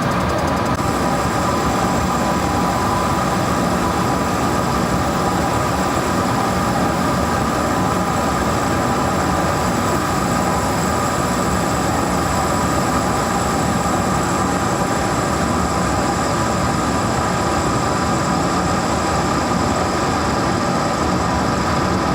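Metal lathe running steadily while taking a light facing cut on a cast locomotive driver center: a constant motor and gear whine over a steady noise.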